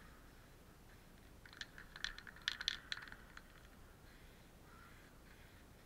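A brief, irregular run of sharp clicks and rattles, lasting about two seconds, from something small and hard being handled.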